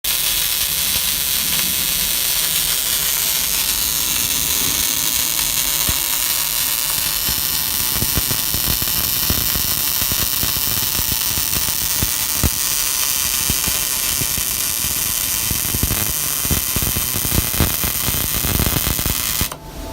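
MIG welding arc running a continuous bead: a steady crackling hiss with scattered sharp pops, cutting off suddenly near the end.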